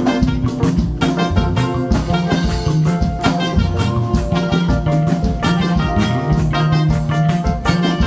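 Upbeat instrumental band music with a steady drum-kit beat, likely live worship music.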